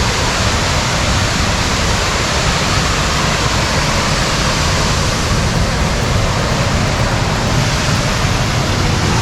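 Horsepound Falls waterfall heard from close up: a loud, steady rush of falling water.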